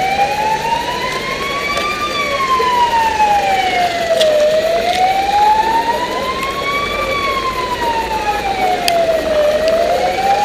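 Emergency vehicle siren wailing, its pitch slowly rising and falling, about five seconds per cycle, twice over.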